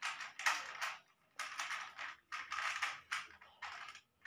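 Batter-coated potato chops frying in hot oil in a wok, the oil sizzling and crackling in a series of short bursts with brief gaps between them.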